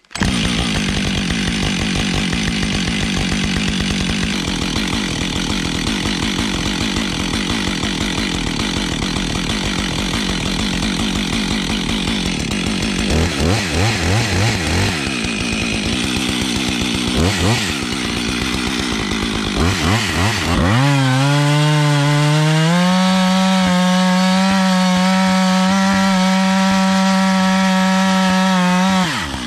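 Husqvarna 555 two-stroke chainsaw driving a Lewis MK2 chainsaw winch, idling at first, blipped a few times, then held at high revs for about nine seconds as the winch spool hauls the cable in under load. The revs fall away just before the end.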